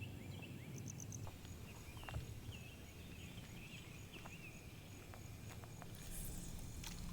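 Quiet outdoor ambience: faint repeated chirps, with a few light clicks and taps scattered through.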